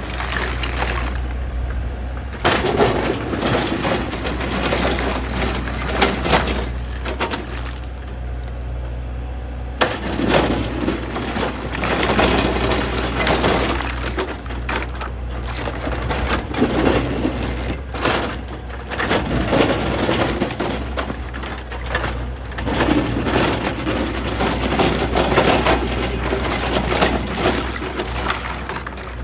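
Excavator engine running with a steady low hum, while the bucket digs and scrapes, with bursts of clattering as soil and stones tumble, repeated every few seconds.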